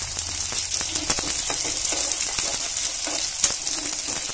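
Cut green chillies and onions frying in hot oil in a metal kadai, sizzling steadily, with a metal spoon scraping and clicking against the pan as they are stirred.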